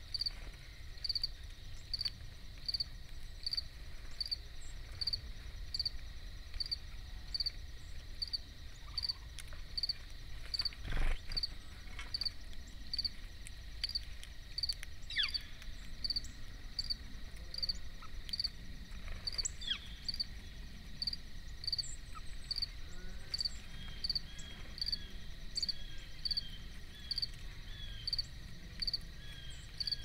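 Evening insect chorus: one insect, likely a cricket, chirps high, steadily and evenly a little more than once a second over a faint, continuous high trill. A single dull knock sounds about eleven seconds in.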